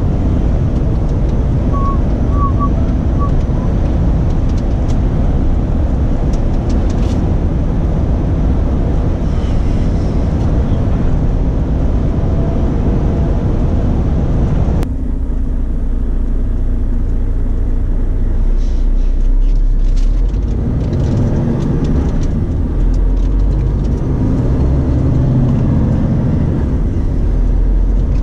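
Renault Trucks T-range lorry on the move, heard from inside the cab: a steady engine drone with road and tyre noise. About halfway through, the higher hiss cuts off abruptly, leaving a lower engine rumble that rises and falls in pitch.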